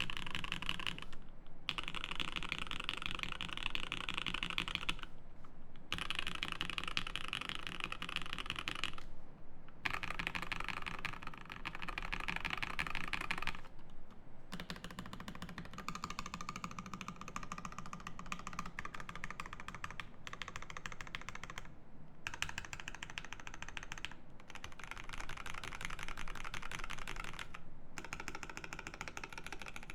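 Fast typing on a Bauer 8008 mechanical keyboard with lubed Gateron Ink linear switches in an aluminium plate and GMK keycaps: a dense, even clatter of keystrokes broken by brief pauses every few seconds.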